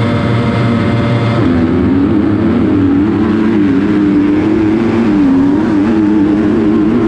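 KTM 250 SX-F four-stroke single-cylinder motocross bike engine at race speed. It holds a steady high note for about the first second and a half, then its pitch rises and dips again and again as the rider works the throttle and gears down the start straight.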